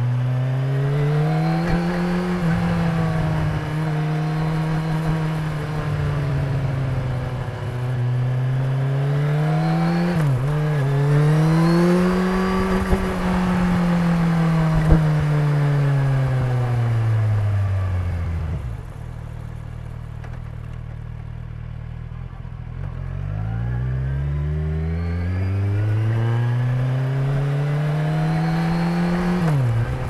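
Kawasaki Ninja 1000's inline-four engine and exhaust heard while riding. It pulls up through the revs with a quick dip at each gear change, falls to a low steady note for a few seconds past the middle, then accelerates again.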